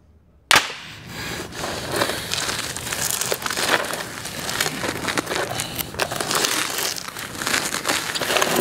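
A sudden loud hit about half a second in, then dense crackling and clattering with many sharp clicks, a sound effect for the aftermath of a battle.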